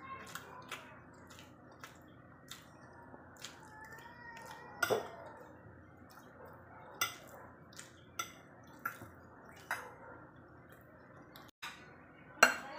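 Metal spoon and fork clicking and scraping against ceramic bowls and plates as food is scooped, in scattered sharp clinks, the loudest about five seconds in, about seven seconds in and near the end. Soft wet eating sounds come between the clinks.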